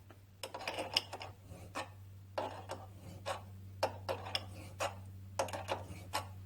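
Hand-turned 1/8 pipe tap cutting threads in a cast-iron fuel mixer body, giving irregular scraping clicks as it is worked around. A low steady hum runs beneath.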